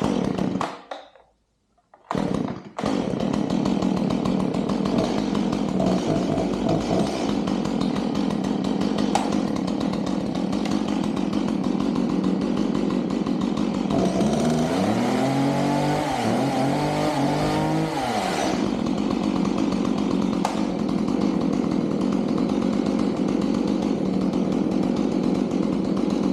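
Stihl MS 180 two-stroke chainsaw pull-started after its choke 'burp': a brief burst at the start, then it catches about two seconds in and runs steadily. Around two-thirds of the way through the throttle is blipped twice, the engine rising and falling in pitch, before it settles back to idle.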